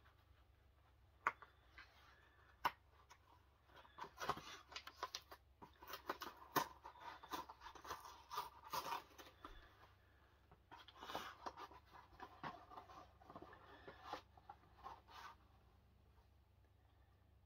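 Faint sounds of a mail package being opened by hand: two sharp clicks in the first few seconds, then two stretches of crinkling, tearing and rustling packaging. It falls quiet near the end.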